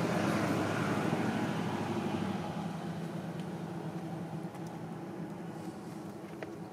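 A vehicle engine droning steadily in the background, loudest near the start and slowly fading away.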